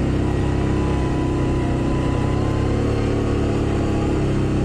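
Can-Am Outlander ATV engine running steadily as the machine is ridden along a dirt road, with an even, unchanging engine note.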